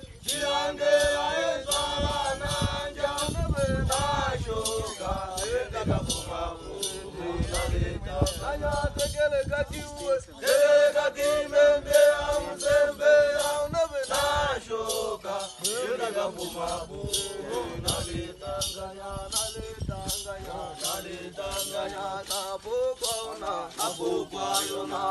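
Hadzabe dancers singing a traditional dance song, several voices together holding and sliding between notes. Under the singing runs a steady, sharp rattling beat, about two to three strokes a second.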